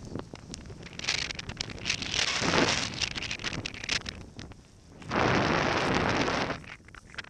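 Skis hissing through deep powder, with wind buffeting a helmet-mounted camera's microphone. About five seconds in there is a louder, steady rushing noise lasting over a second, as a gloved arm and jacket sleeve come right up against the camera.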